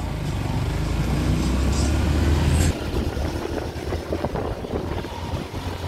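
Small motorcycle engine running while riding along a road, with wind on the microphone. About two and a half seconds in, the steady low rumble cuts off abruptly and choppier wind noise takes over.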